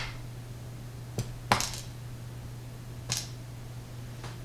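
Four sharp, light clicks of small metal lock parts and tools being handled on a tabletop, the loudest about a second and a half in, over a steady low electrical hum.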